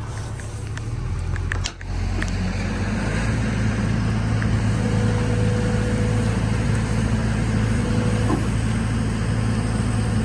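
Heavy equipment engine running steadily, with a few light clicks and a brief dip in level about two seconds in.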